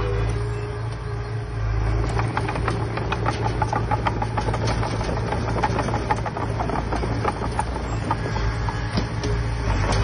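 Heavy diesel earthmoving machinery running steadily, with a rapid clatter of knocks and rattles from about two seconds in until near the end.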